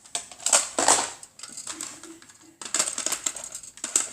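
Hard plastic Nerf blaster parts clattering and clicking as they are handled, in a run of short, uneven bursts.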